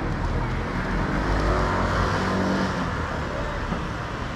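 A car passing close by, its engine note falling in pitch as it goes past; loudest about two seconds in.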